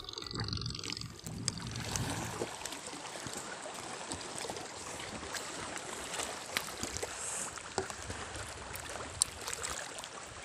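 Sea water lapping and trickling against a small boat, a steady soft wash with occasional light clicks.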